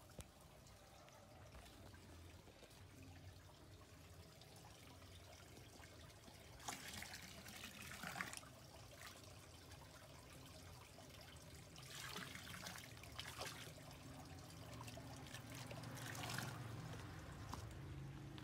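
Faint trickling and splashing of water at a garden koi pond, coming in short spells about seven and twelve seconds in.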